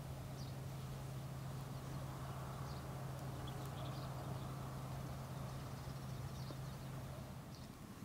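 A steady low hum that fades out near the end, with faint, short, high chirps scattered over it.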